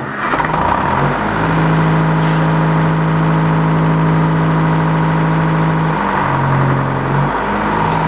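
The circular sawmill's engine comes up to speed and runs steadily. About six seconds in, its pitch drops for just over a second and then recovers, as the saw blade is engaged and spins up.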